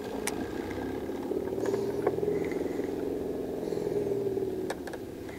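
Engine of a passing motorboat, growing louder and then fading away, with a couple of light clicks.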